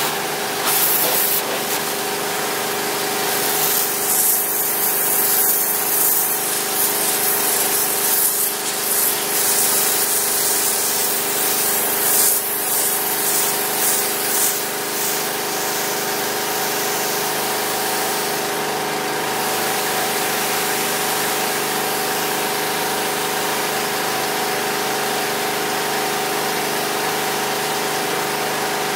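Pressure washer running: a steady engine drone, with the hiss of the water spray starting and stopping over the first fifteen seconds or so.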